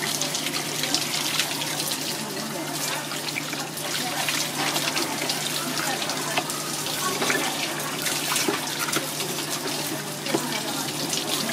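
Running water from a hose splashing over a fish and a wooden cutting board as the fish is rinsed and cleaned, with frequent small clicks and scrapes from hands and knife.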